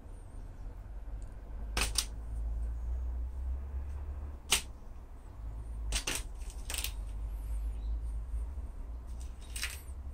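A cat batting, leaping and biting at a dry autumn leaf on a stem: about seven sharp, brittle crackles and taps scattered through, over a steady low rumble.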